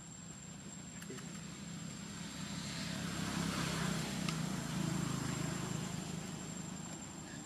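A motor vehicle passing: a low engine hum that swells to its loudest around the middle and fades toward the end.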